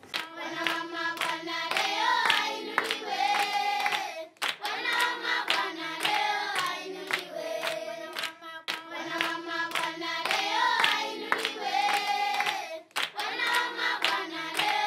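Closing music: a sung melodic phrase over sharp clap-like beats, looping about every four seconds.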